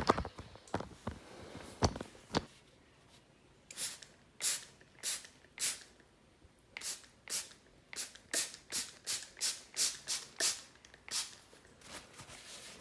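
Spray bottle squirting water in short hissing bursts, about twenty pumps coming faster toward the end, after a few handling clicks.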